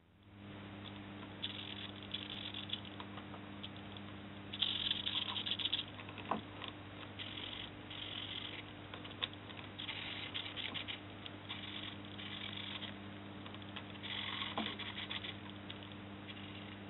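Small hobby servo motors driving model semaphore signal arms: short buzzing whirs of about a second each, about six times, with a few light clicks, over a steady low hum.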